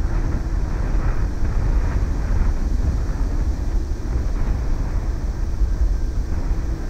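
Steady low rumble of wind buffeting the microphone, mixed with the distant drone of a Boeing twin-jet airliner's engines on final approach.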